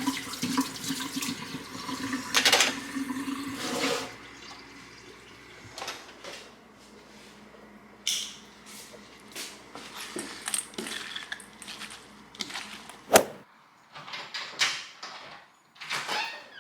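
Water running in a rush for about four seconds, then scattered light clicks and knocks, with one sharp knock about 13 seconds in.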